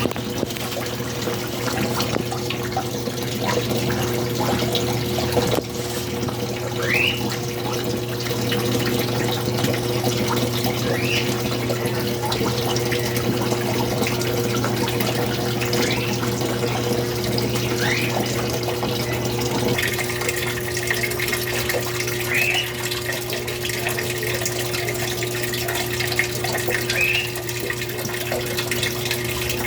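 Washing machine running with water in the drum: a steady motor hum over pouring and sloshing water, with a short rising squeak every four or five seconds.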